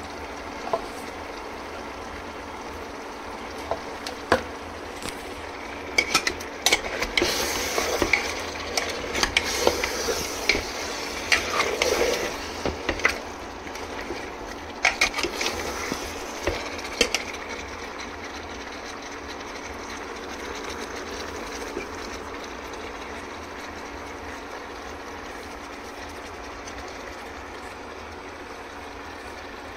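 A spoon stirring mutton in a pot, mixing in freshly added salt, clinking and scraping against the pot in a busy stretch through the middle, over a steady sizzle of the meat cooking in oil. For the last dozen seconds only the steady sizzle remains.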